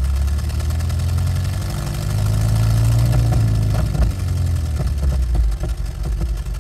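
Synthesized Ford GAA V8 tank engine revving up under throttle, then falling back as the throttle is released. Sharp backfire pops crackle on the overrun in the second half.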